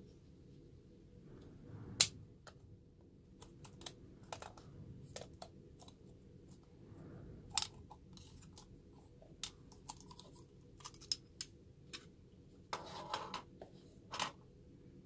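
Hard plastic clicks and taps as a DJI Osmo Action camera and its plastic case are handled, with one sharp click about two seconds in, another loud click past the middle and a quick cluster of clicks near the end.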